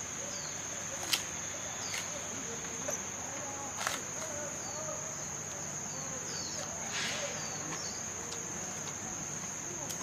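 Giant panda crunching bamboo shoots: a few sharp cracking snaps, the loudest about a second in, over a steady high drone of insects.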